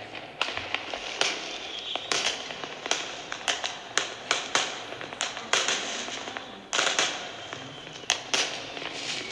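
Recorded fireworks played back from a tablet into the lectern microphone: irregular sharp bangs, sometimes several in a second, with crackling between them.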